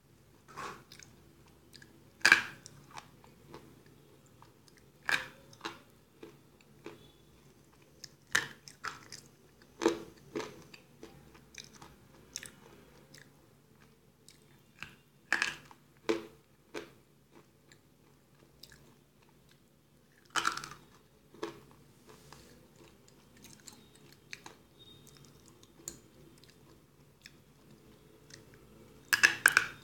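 Eagle brand slate pencils being bitten and chewed: sharp, crunchy snaps every few seconds with softer grinding chews between them, and a quick run of several crunches near the end.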